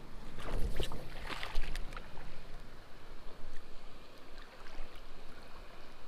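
Creek water running over a shallow gravel riffle, with wind or handling rumble on the microphone and a few short knocks and splashes in the first two seconds.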